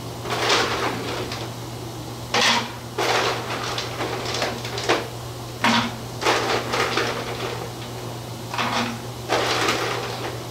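Ice cubes rattling as they are scooped from an ice bucket and dropped into a cup, in a series of short rattles, over a steady low hum.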